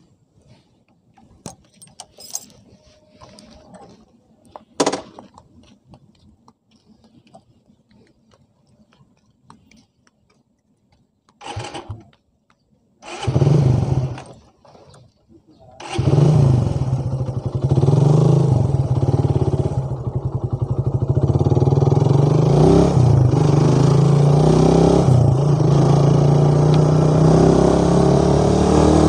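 Motorcycle engine starting and riding off. First come a few small clicks and two short bursts. About sixteen seconds in the engine catches and keeps running steadily, its pitch rising now and then as it pulls away.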